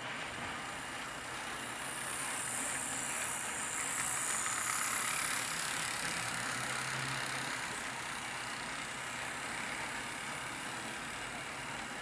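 Model diesel locomotive running along a tabletop layout: a steady mechanical whir of its drive and wheels on the track. It grows louder about two seconds in and eases off after about seven seconds.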